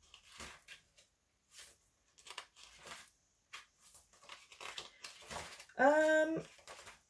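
Paper pages of a booklet rustling and flipping, a string of short crinkly sounds. Nearly a second before the end, a woman's short wordless puzzled vocal sound, like an 'hmm?', rising in pitch and then holding; it is the loudest thing heard.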